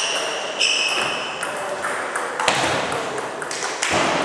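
Table tennis ball clicking off rackets and table during a rally, with sharp knocks from the hall's other tables and two short high squeaks in the first second and a half. A murmur of voices runs underneath.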